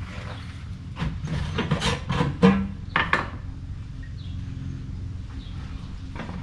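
Gloved hands handling a cloth rag: a cluster of short rustles and knocks between about one and three seconds in, then only a steady low hum.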